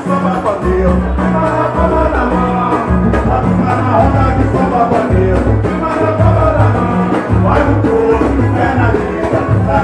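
Live samba band playing a partido-alto groove: surdo and drum-kit beat, pandeiro and acoustic guitar, with singing over it.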